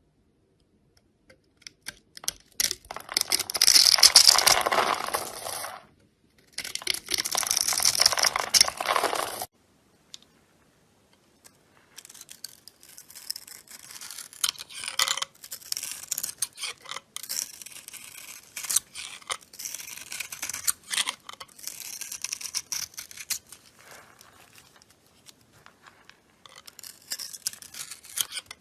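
A knife cutting into a bar of soap: two long, loud crunchy cuts, then after a short pause a run of quieter, crackly scraping and shaving.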